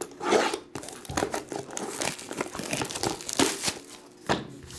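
Plastic shrink-wrap crinkling and tearing in a quick, uneven run of crackles as a utility knife slits it and it is pulled off a cardboard trading-card box, with a few louder rustles.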